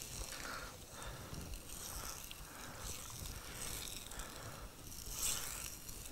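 Faint, irregular scraping and rustling as a wooden stick stirs and lifts melted cheese in a clay pot, a little louder a little after five seconds.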